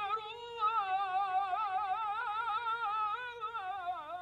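Solo voice singing one long, unbroken melismatic line, quick ornamental wavers around a held pitch, dipping briefly near the end.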